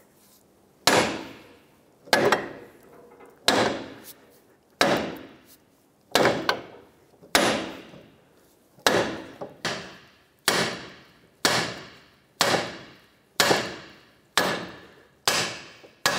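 Hammer blows on a Ford Focus front steering knuckle, driving it down and off the strut. The strikes come about once a second, each a sharp metallic hit that rings briefly.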